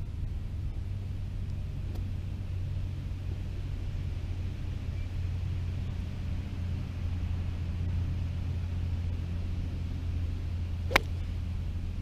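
A steady low rumble, then about eleven seconds in a single sharp click of a golf club striking the ball off the fairway grass.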